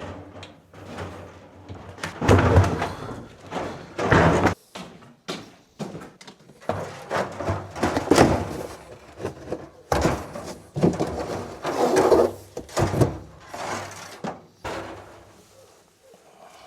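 Irregular knocks, bangs and scrapes of things being handled and set down, a dozen or so over the stretch, some loud.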